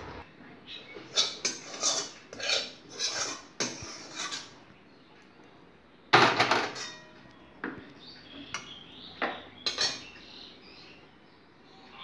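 Metal cookware clinking and clattering: a metal spoon knocking and scraping against an aluminium cooking pan and a steel bowl as the curry is dished out. The clinks come in an irregular run, the loudest cluster about halfway through.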